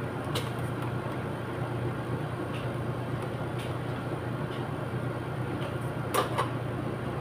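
Clothes iron worked over denim jeans on an ironing board: light knocks and clicks as it is moved and handled, with one louder clatter about six seconds in, over a steady mechanical hum in the room.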